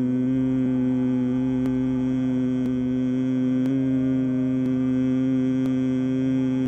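A long, steady, low humming on a single exhaled breath, the humming bee breath of bhramari pranayama, with a slight shift in pitch a little past halfway.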